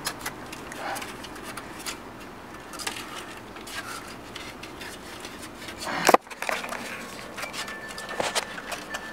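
A baby raccoon suckling and pawing at a plastic feeding bottle, with scattered small clicks and crackles of its mouth and paws on the plastic, and one louder knock about six seconds in.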